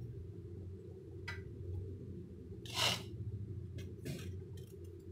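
Kitchen knife shaving the skin off a raw green mango: a few short scraping strokes, the loudest about three seconds in, over a steady low hum.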